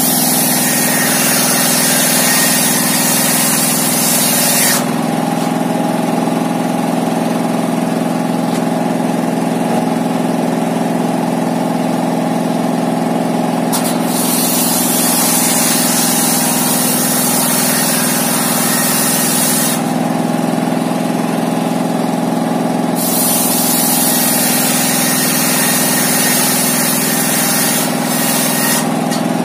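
A homemade circular-saw bench, driven by a diesel engine, runs steadily, and its blade rips through timber in three long cuts. Each cut is a loud hiss over the engine's hum, lasting about five seconds, with the saw running free between cuts.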